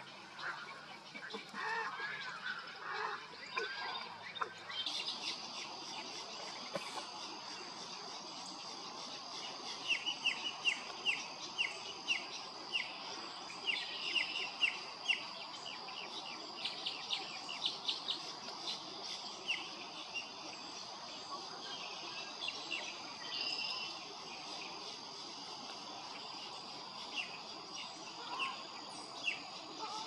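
Outdoor wetland field sound of wild birds: many short chirping calls, busiest in the middle, over a steady high-pitched hum that starts about five seconds in.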